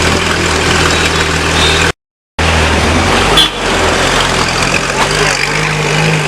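Porsche 911 (991) Carrera GTS flat-six running at idle through an aftermarket IPE exhaust, a steady low drone. The sound cuts out completely for half a second about two seconds in.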